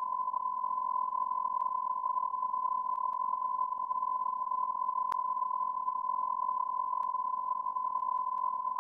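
A steady, unbroken high-pitched electronic beep tone, like a censor bleep or test tone, over a light hiss, with a faint click about five seconds in.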